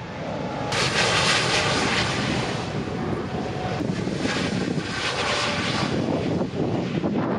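Jet airliner engines running loudly as the plane passes close by: a steady roar that swells about a second in and then holds.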